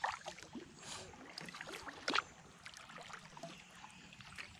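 Kayak paddle strokes in calm water: blades dipping and dripping, with louder splashes at the start and about two seconds in.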